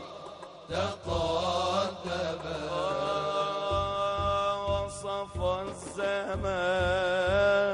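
Unaccompanied Arabic devotional song (inshad) in praise of the Prophet: men's voices chant, then from about three seconds in a solo male voice holds long, wavering, ornamented notes. Low regular thuds keep a slow beat under the solo.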